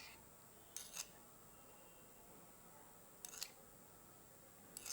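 Near silence broken by three brief groups of faint sharp clicks, two or three clicks in each.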